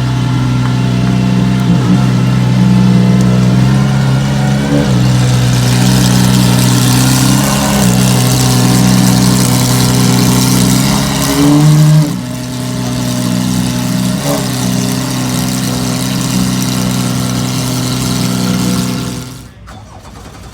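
Supercar engine running at a steady idle, with a short rev about eleven seconds in before it settles again; the sound drops away just before the end.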